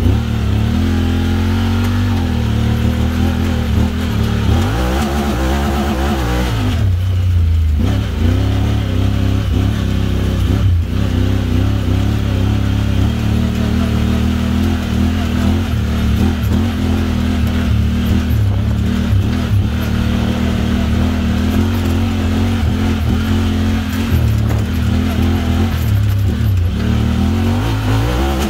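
Honda Talon X's 999 cc parallel-twin engine through an aftermarket Evo Performance exhaust, running under way with the throttle opening and closing. It backs off briefly about seven seconds in and again around eleven seconds.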